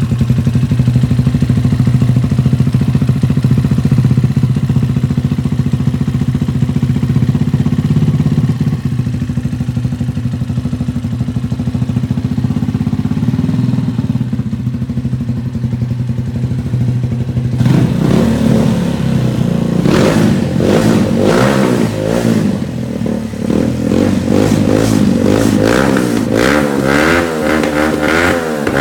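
Cafe racer motorcycle's Lifan four-stroke engine idling steadily, then from about two-thirds of the way in it is revved with repeated throttle blips.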